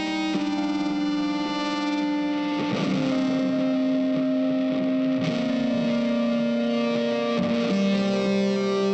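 Background music: slow, held chords that change about every two and a half seconds.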